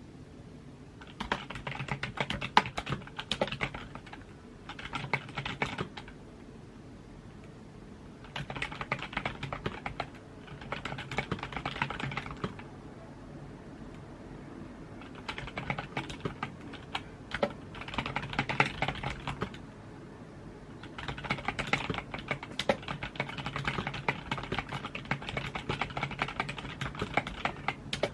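Typing on a computer keyboard: fast runs of key clicks in bursts of a few seconds, broken by short pauses, with a longer unbroken run near the end.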